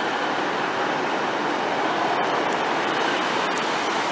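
Northern passenger multiple-unit train running past close alongside the platform, a steady, even noise of its wheels and running gear.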